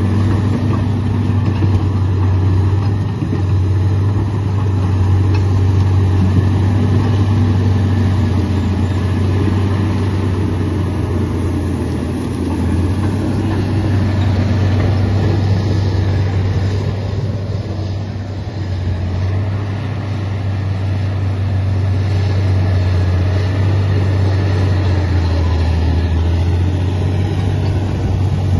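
Komatsu D85 bulldozer's diesel engine running steadily under working load, easing off briefly about twelve seconds in and again around eighteen seconds, then picking back up.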